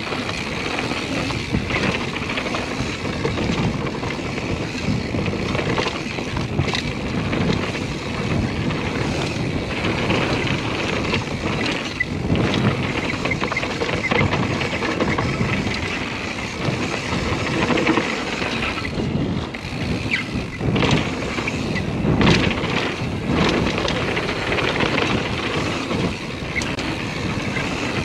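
Mountain bike descending a dirt trail: steady tyre noise on loose dirt, with frequent knocks and rattles from the bike over bumps.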